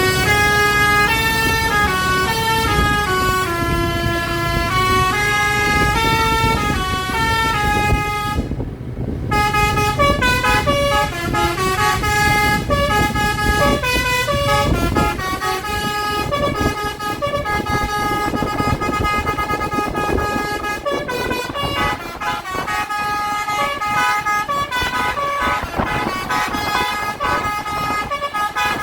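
Basuri-type telolet multi-tone horn on a tour bus playing a tune, note after note in stepped pitches, with a short break about eight and a half seconds in. Engine and road rumble run underneath.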